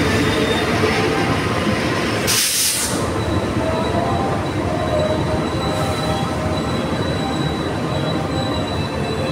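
Kamandaka passenger train standing at the platform, running with a steady mechanical drone and faint thin tones over it. A short sharp hiss of air breaks out about two and a half seconds in, with a fainter one around six seconds.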